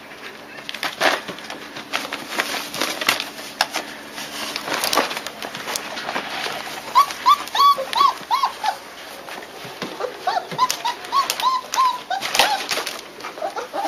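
Young German shepherd puppies squeaking and whimpering: a run of short high squeaks, about three a second, about seven seconds in, and another run a little past ten seconds, over scattered clicks and scuffling.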